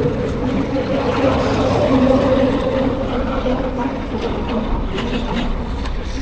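Honda motorcycle engine running at a steady cruise, with wind rush over the rider.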